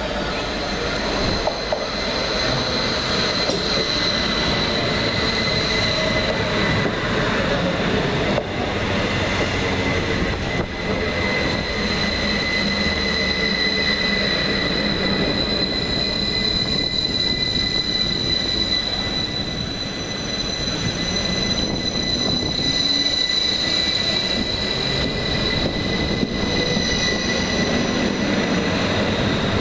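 Two coupled electric multiple units, a Class 322 and a Class 333, passing slowly close by on the overhead-wired line, with a continuous wheel-and-rail rumble. A steady high-pitched squeal runs over the top, and lower tones slide down in pitch early on and rise again later.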